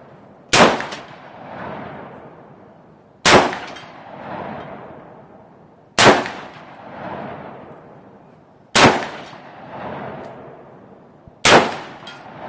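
5.56 rifle fired five times in slow single shots, about one every 2.7 seconds. Each sharp report is followed by a long rolling echo that swells again about a second after the shot.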